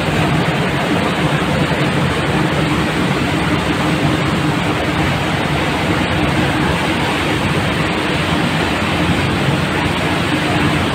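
Steady engine drone of a river cruise motor ship under way, with a faint hum, over the rushing of its propeller wash churning behind the stern.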